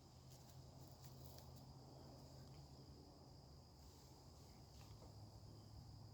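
Near silence: a faint steady high-pitched tone over a low hum, with a few faint ticks.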